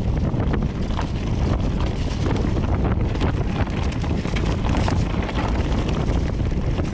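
Wind rushing over the microphone of a Cube Stereo 150 full-suspension mountain bike riding a forest trail, with a steady low rumble and frequent irregular knocks and rattles from the bike over the rough ground.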